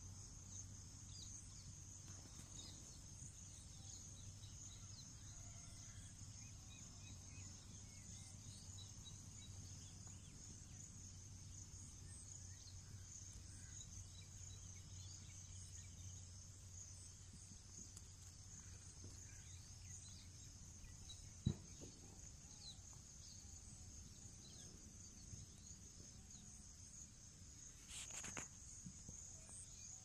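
Faint, steady high-pitched insect chorus. A single sharp click about two-thirds of the way in and a short rustle near the end.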